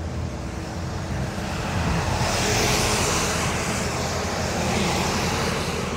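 A vehicle passing on the highway: engine and tyre noise that swells from about two seconds in, is loudest around three seconds, then slowly fades.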